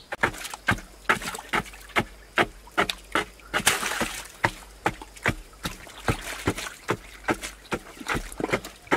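Hand digging tool chopping into packed earth at the bottom of a narrow dug well pit, in quick, slightly uneven strikes about two or three a second. A brief rush of noise comes about four seconds in.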